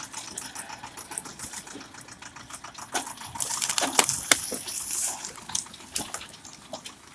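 Crackling and rustling, as of footsteps over dry forest litter and twigs, with a few sharp snaps about four seconds in, over the Zetor Forterra 9641 tractor's diesel engine running steadily.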